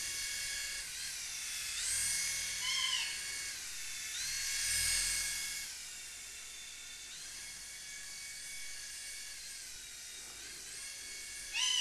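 Small electric motors of a coaxial-rotor toy flying helicopter (hand-sensor induction type) whining in flight, the pitch stepping up and down a few times as the motor speed changes. It is a test flight after repair of the toy's rotor gears.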